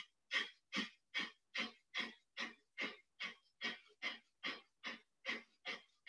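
Breath of fire: short, forceful exhalations through the nose, evenly spaced at about two and a half a second, about fourteen in a row.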